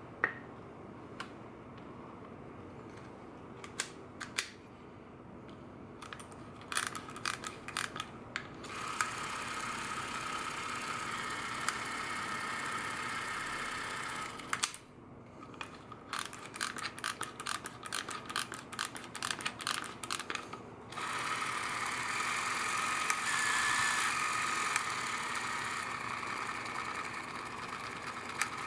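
Zenit Quarz 1x8S-2 Super 8 cine camera being wound and run twice. Rapid ratcheting clicks come as its clockwork spring is wound, then the spring motor runs with a steady whirr for about five seconds. More winding clicks follow, and a second longer whirr that runs until just before the end.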